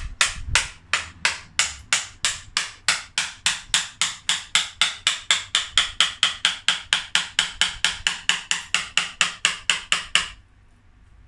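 Mallet striking a carving chisel into an elm trunk, about four even knocks a second, to cut away broken dead wood and hollow the trunk. The knocks stop suddenly near the end.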